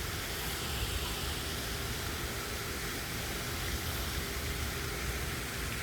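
Steady outdoor background noise: an even hiss with a fluctuating low rumble underneath and no distinct events.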